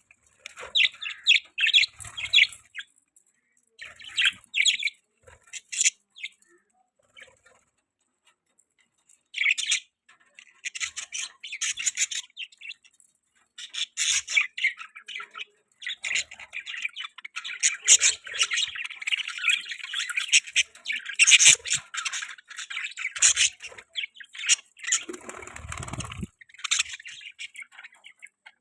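A flock of budgies chirping and chattering, in short bursts at first, then a dense, continuous warble of squawks and chirps. A brief low rumble comes near the end.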